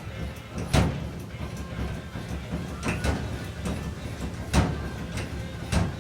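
Dull knocks on the steel roof panel of a 1970 Dodge Challenger, four strikes spaced one to two seconds apart, as the oil-canned, dented roof is worked back into shape.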